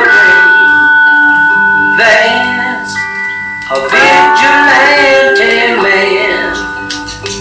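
Recorded blues song playing back: plucked guitar with long held, bending notes and some singing.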